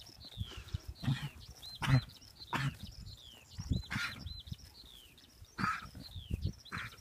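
A songbird singing a short phrase over and over: a falling note followed by a couple of short arched notes, about once a second. Louder, brief low rustles and thuds of horses grazing and moving close by come several times.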